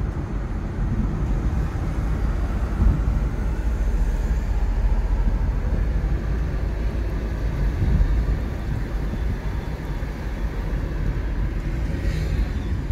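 Steady low road and engine noise inside the cabin of a moving car in city traffic.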